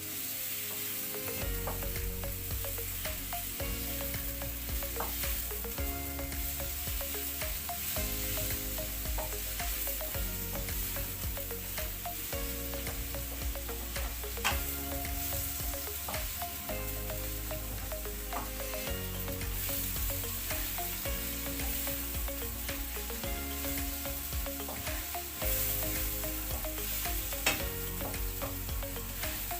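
Mushrooms frying in olive oil in a pan, sizzling steadily while being stirred, with scattered sharp clicks of the spoon against the pan.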